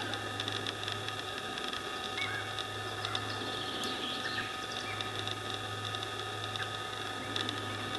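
Faint, brief bird calls and chirps scattered over a steady background hum and hiss with constant whining tones.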